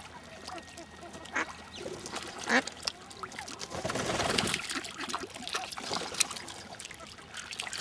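Ducks quacking a few short times, with a brief rush of noise about halfway through.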